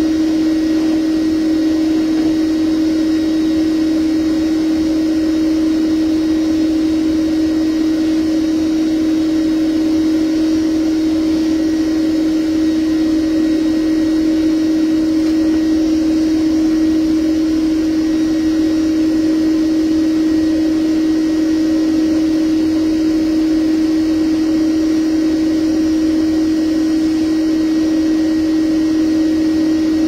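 Bee vacuum motor running with a steady, unchanging hum as its hose is used to suck bees off exposed honeycomb.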